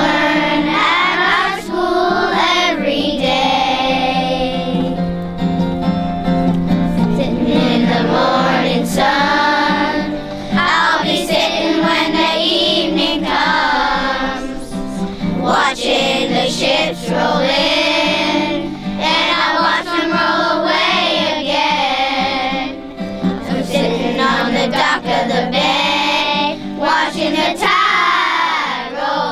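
Children singing a song together over musical accompaniment.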